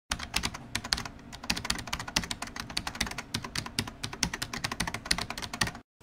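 Fast typing on a keyboard: a rapid, irregular run of sharp key clicks, roughly eight a second, that stops just before the end.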